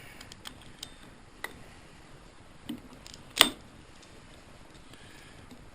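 Hand ratchet and wrench working a stuck bolt on a small engine: a few scattered metal clicks and ticks, with one loud sharp clank about three and a half seconds in.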